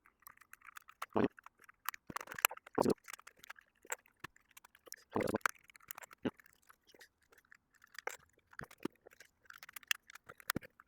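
Irregular plastic clicks, crunches and scrapes as tools pry and work at an Xbox 360 controller's plastic shell.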